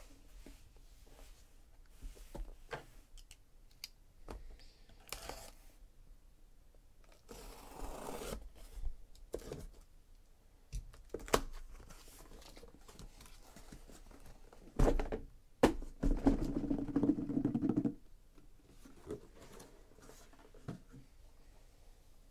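A taped cardboard shipping case being opened by hand: packing tape torn, cardboard flaps rustling, and the small sealed card boxes inside knocked and slid out. A tearing swish comes about 8 seconds in, then a few sharp knocks and a longer scraping slide of cardboard on cardboard, the loudest part, ending near the 18-second mark.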